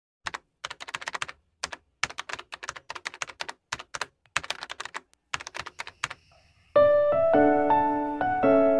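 Computer-keyboard typing sound effect: quick irregular clusters of key clicks for about six seconds. A soft piano tune with held notes starts near seven seconds in.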